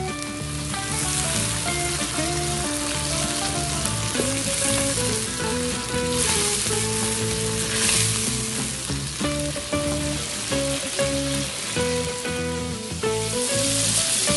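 Whole shell-on shrimp frying in hot oil in a wok, sizzling steadily, with a wooden spatula stirring them through the oil; the sizzle swells at times as they are turned. The shrimp are being fried until the shells turn crisp.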